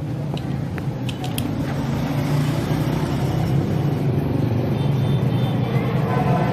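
A motor running steadily with a continuous hum that grows slowly louder, with a few light clicks in the first second or so.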